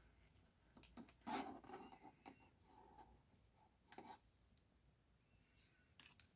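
Faint handling sounds of knitting on circular needles: the needle tips click softly and the yarn and plastic cable rub as they are drawn through the stitches. A louder rustle comes about a second in and another around four seconds.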